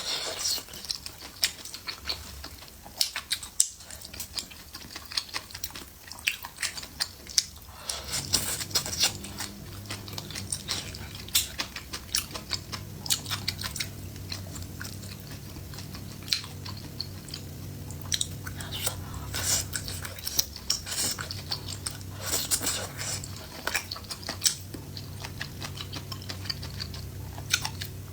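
Close-miked chewing and biting of food, with many sharp wet mouth clicks. A low steady hum starts about eight seconds in.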